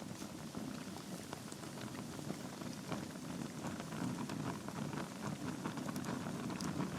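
Wood logs burning in a fireplace, crackling with many small irregular pops over a steady low rush of flame.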